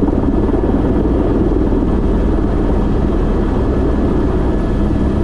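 Airbus H125 (Esquilo B3e) helicopter's turbine and rotor running steadily, a loud, constant noise.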